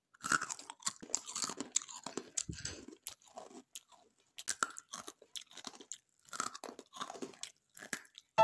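Crisp fried tomato chakli (murukku) being bitten and chewed, in irregular sharp crunches with a few short pauses.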